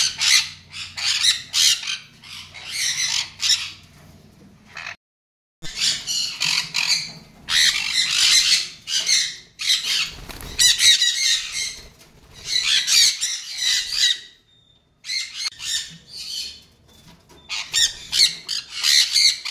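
A flock of sun conures calling, with many shrill calls repeating and overlapping. The sound cuts out completely for about half a second around five seconds in, and there is a short lull near fourteen seconds.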